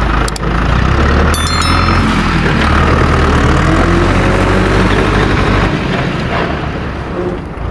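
Heavy truck engine running steadily as the truck pulls away, with a brief high metallic ring about a second and a half in.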